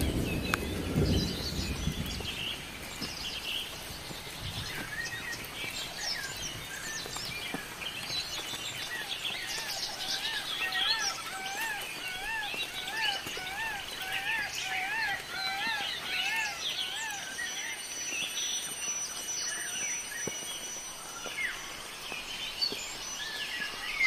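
Forest birds chirping and calling, with a run of rising-and-falling notes repeated about twice a second through much of it. A brief low rumble sounds at the start.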